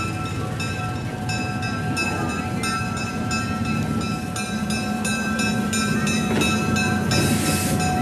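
Monon DS-50 diesel switcher locomotive moving slowly with its bell ringing, about three strokes a second, over the low running of its diesel engine. There is a short hiss of air near the end.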